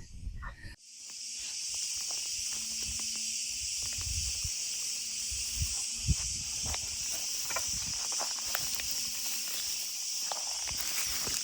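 Steady high-pitched insect chorus that starts abruptly about a second in. Scattered soft knocks and scuffs are heard over it, the sharpest about six seconds in.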